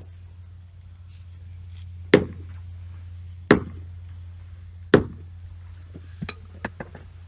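Three sharp, heavy knocks about a second and a half apart, then a few lighter quick knocks near the end, over a steady low hum.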